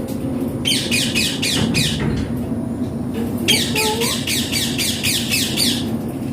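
Indian ringneck parakeet giving two bouts of rapid, harsh repeated screeches, the first about a second in and the second from about halfway.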